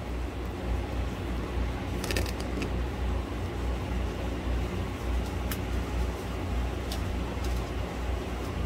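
A steady low mechanical hum with a few light clicks and taps over it.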